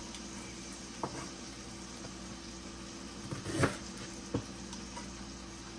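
Steady low hiss of a kitchen with pots cooking on the stove, broken by a few light knocks of cookware, the loudest about three and a half seconds in.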